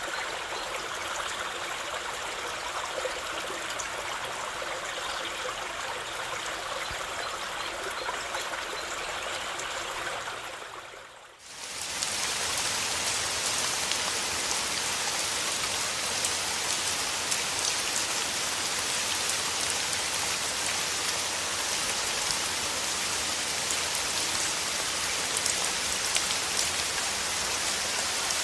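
Flowing stream, a steady rush of water, fades out about eleven seconds in. It gives way to steady rain, a brighter and slightly louder hiss full of small drop clicks.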